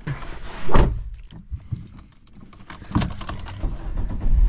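Someone settling into a small car's driver's seat: rustling and a single thump about a second in, then small clicks and key jangles at the ignition, with the dashboard lights on. The Ford Ka's engine catches at the very end and starts running with a low rumble.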